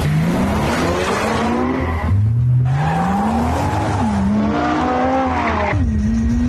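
Nissan Juke-R's twin-turbo V6 accelerating hard. Its pitch climbs steadily, drops at a gear change about two seconds in, then climbs again, dipping once more near the end.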